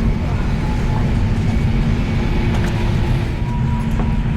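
Steady low rumble of a vehicle interior, with a constant hum running underneath.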